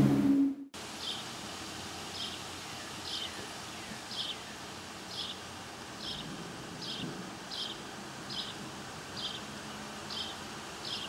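A low chord cuts off suddenly under a second in. It is followed by quiet outdoor ambience with a short, high, slightly falling chirp repeating steadily, about three chirps every two seconds.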